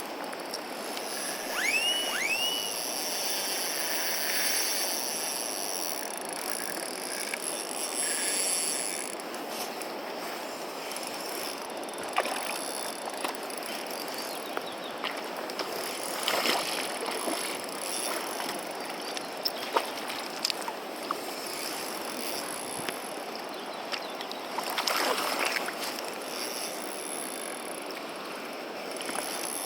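Steady rush of a clear mountain stream's flowing water. About two seconds in come two quick rising whistles, and a few light clicks are scattered later.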